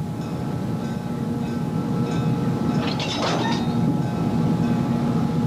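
Diesel locomotive running and moving with a steady low rumble. There is a short higher-pitched sound about three seconds in.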